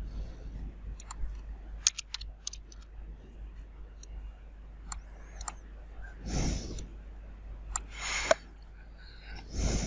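Scattered clicks of a computer mouse and keyboard. Three short breaths close to the microphone come in the second half, the last near the end, over a low steady hum.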